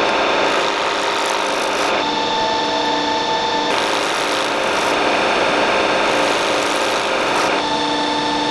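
Metal lathe running: a steady mechanical hiss with a few held tones from the motor and drive. The sound changes abruptly about two seconds in, again near the middle, and near the end.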